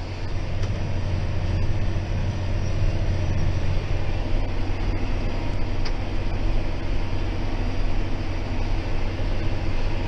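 John Deere 6190R tractor's six-cylinder diesel engine running steadily under load while pulling a plough, heard from inside the cab.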